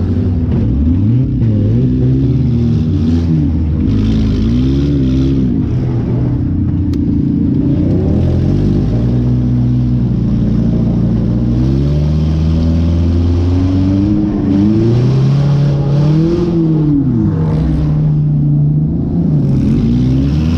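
Compact demolition-derby car's engine, heard from on board, revving up and dropping back again and again as the car accelerates and lets off.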